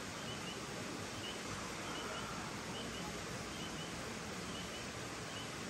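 Summer night outdoor ambience: a steady hiss with short, high chirps, often in pairs, repeating about once a second from a small night-calling animal.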